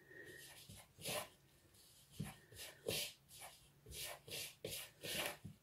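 Fingertips rubbing fat into a crumbly flour, ground almond and sugar mixture in a bowl: faint, irregular short rustles and scrapes as the crumbs are worked and brushed against the bowl.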